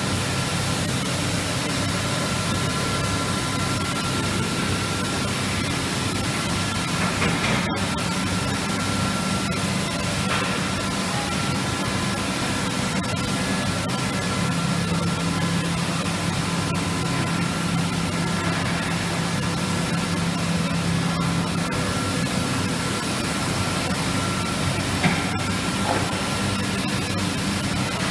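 Steady factory background noise: an even hiss with a constant low hum and a few faint steady tones from running machinery. There is one brief click near the end.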